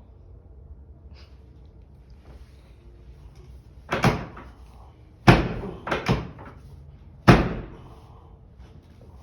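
Chiropractic adjustment thrusts, each a sharp thud against the patient and the treatment table. There is a pair about four seconds in, then a loud one followed by two smaller ones between five and six seconds in, and a last loud one about seven seconds in.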